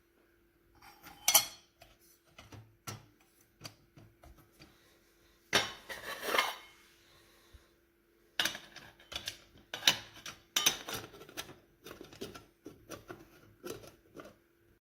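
Stovetop espresso pot being handled, its metal parts clinking and clanking together in irregular bursts, over a faint steady hum.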